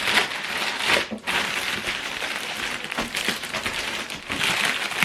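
Packaging crinkling and rustling as it is handled and opened, in uneven bursts with a short pause about a second in.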